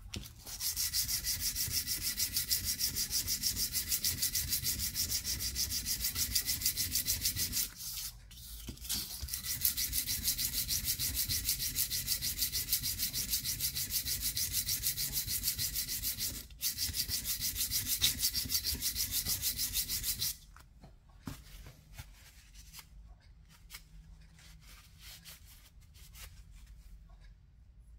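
Steel Dnepr 650 tappet face being lapped flat by hand on 150-grit sandpaper wetted with WD-40, on a flat steel plate: a rapid, even back-and-forth rasping, pausing briefly twice and stopping about two-thirds of the way through, after which there are only faint handling clicks.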